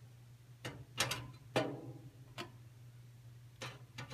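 About five sharp, irregularly spaced metallic clicks from a toaster oven's metal rack and cavity, over a low steady hum.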